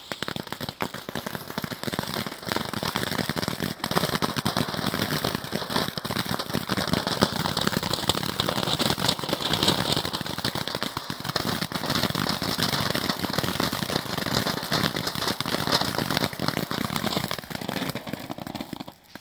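Silver Chrysanthemen flower fountain, a 60 g F2 ground-fountain firework, burning: a steady loud rushing hiss of sparks with many small crackles throughout, cutting off abruptly near the end as the fountain burns out.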